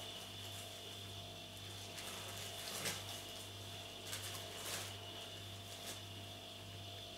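Clear plastic air-cushion packaging crinkling in short rustles as a cat crawls into it and wriggles about, loudest about three seconds in and again around four to five seconds in. A steady low hum runs underneath.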